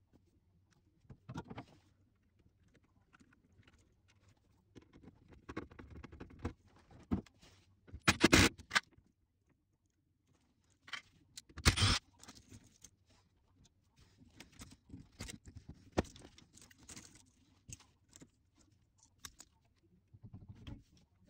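Small clicks, rustles and scrapes of wiring and a hand tool being handled at an air conditioner's electrical control panel, with two louder bursts of rustling about eight and twelve seconds in.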